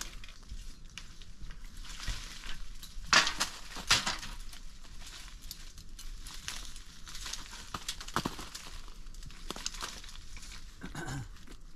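Irregular rustling and crinkling handling noise with scattered crackles, and two louder clatters about three and four seconds in.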